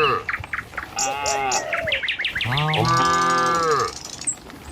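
Cattle mooing: one moo trails off at the start, a shorter call comes about a second in, and a long moo runs from a little past halfway to near the end.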